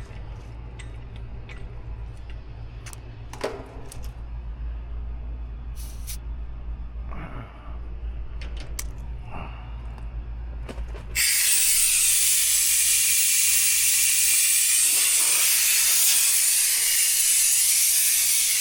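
A steady low hum with a few light clicks, then about eleven seconds in a loud, steady hiss of gas starts: refrigerant rushing through the heat pump's refrigerant lines and gauge hoses.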